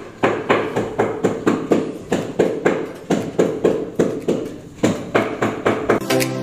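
Silkworm caterpillars chewing cassava leaves: crisp crunching bites, about four a second, slightly uneven.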